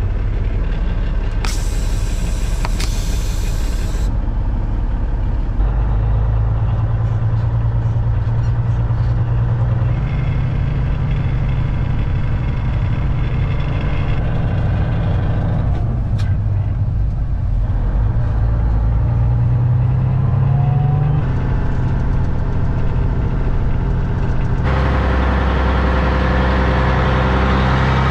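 Loaded Peterbilt semi truck's diesel engine pulling away and working up through the gears, heard from inside the cab, its pitch stepping up several times. A hiss of air from the air brakes comes about two seconds in. Near the end the sound switches to the truck running along a gravel road, heard from beside the front wheel.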